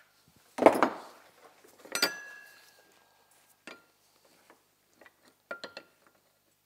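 A hammer striking the steel drive axle and sprocket hub of a vintage Ski-Doo Elan clamped in a bench vise. Two hard metal blows come about a second apart, the second leaving a short ring. A light tap and a quick run of three small clinks follow near the end.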